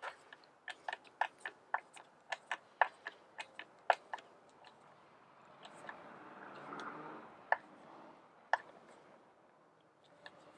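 Torx screwdriver driving a self-tapping screw into the plastic body of a Stihl MS 170 chainsaw to hold the chain tensioner. A quick, uneven run of sharp clicks and creaks lasts about four seconds, then comes a softer scraping rustle with two lone clicks.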